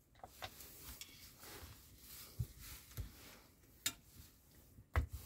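Faint handling of heavy scale-model motorcycle parts on a cardboard-covered kitchen scale: a few light clicks and knocks, then a dull thump about five seconds in as parts are set down on the cardboard.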